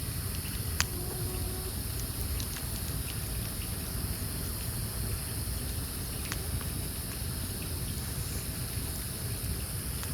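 Wood campfire burning with sparse crackles and one sharp pop about a second in, over a steady high chorus of insects.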